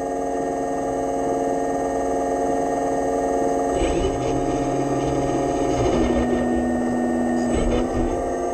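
Hydraulic pump of an RC model excavator whining steadily as the boom and arm are worked. About four seconds in a lower tone and a rougher sound join; around six seconds the whine drops in pitch, and it rises again near the end.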